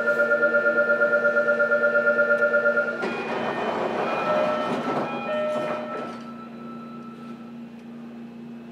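Door-closing warning buzzer of a JR Kyushu 305 series EMU heard from inside the car: a loud electronic tone pulsing rapidly for about three seconds, then a few seconds of clatter and short tones as the doors shut, settling to a steady hum.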